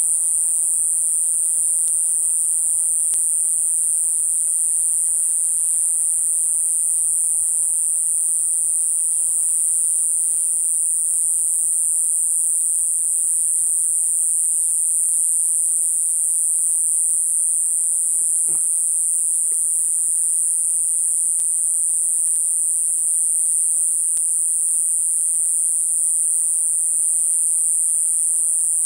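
A dense night-time chorus of insects, crickets or similar, singing as one steady high-pitched unbroken hiss.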